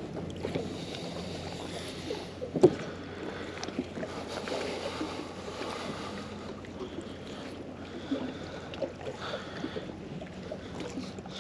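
Magnet-fishing rope being hauled in hand over hand through gloved hands, the magnet dragging up through shallow water with splashing and dripping. A single sharp knock about two and a half seconds in.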